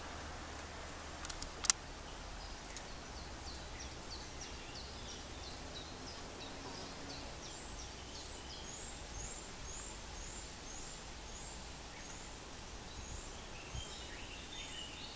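Faint series of short, high bird calls, about two a second, over a low steady hum, with one sharp click about two seconds in.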